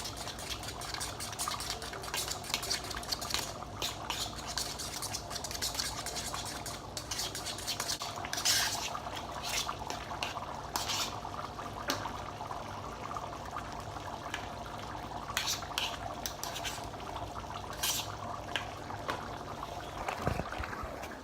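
A utensil stirring and scraping a soft butter spread in a bowl: many short clinks and scrapes over a steady background hum.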